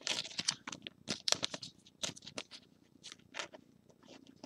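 Trading cards being handled: a run of quick, light scrapes, ticks and rustles as the cards slide against each other and against the fingers, busiest near the start and about a second in.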